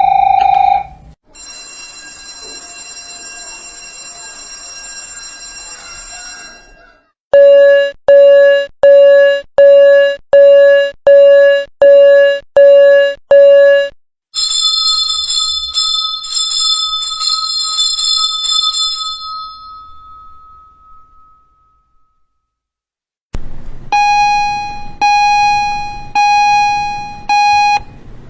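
A series of school bell sound effects. A high, continuous ringing bell lasts about five seconds. It is followed by about a dozen struck bell tones at an even, quick pace, then a high ringing that slowly fades away, and near the end four slower struck tones.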